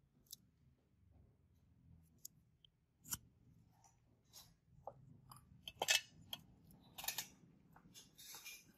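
Small metal instruments being handled: scattered sharp clicks and clinks, the loudest about three, six and seven seconds in, with a short hiss near the end.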